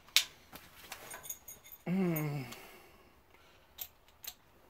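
A few sharp clicks and light metallic ticks from a steel bracket and bench vise being handled, just after drilling. About two seconds in comes a short, falling hum of a man's voice.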